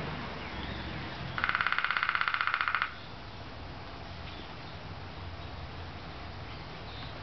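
Downy woodpecker drumming: one rapid, even roll of about a second and a half, starting shortly after the beginning, over a low steady background hum.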